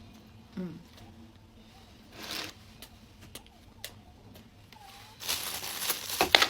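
Plastic packaging crinkling and rustling, loud and crackly in the last second or so. Before it come a brief rustle about two seconds in and a few small clicks.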